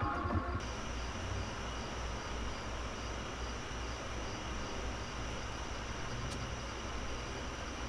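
Steady room noise: a low hum with hiss and faint high steady tones, with a single small click about six seconds in. Background music trails off just after the start.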